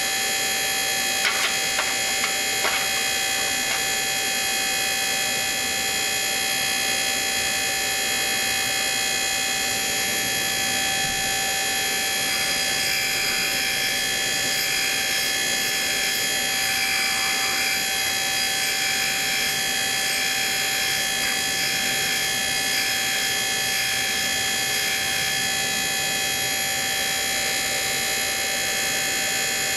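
Valve refacing machine running with a steady multi-tone whine over a hiss while the gouged pad of an MGB rocker arm is refaced on it. There are a few light clicks about a second in, and a rougher rasp comes over the whine through the middle stretch.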